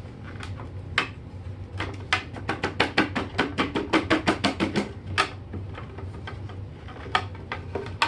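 A hand tapping the clear plastic dust bin of a Hoover Commercial C1125 bagless upright vacuum, knocking clinging sand down before the bin is emptied. It is a quick run of light plastic taps, about six a second, with a few single knocks before and after.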